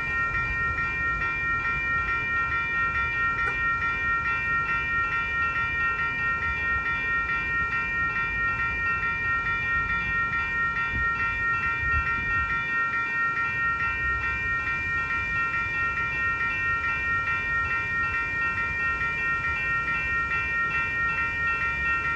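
Railroad crossing warning bell ringing on and on in rapid, even strokes, over a low rumble.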